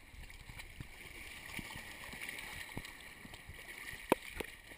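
Shallow sea water sloshing and splashing as a dog and a child wade through the surf, with a sharp knock about four seconds in.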